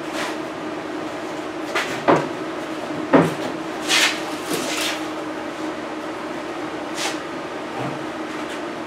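A 1963 Chevy C10 steel door being flipped over on a padded bench: a few knocks and clunks of the door's sheet metal, the loudest about three seconds in, and a short scrape, over a steady low hum in the shop.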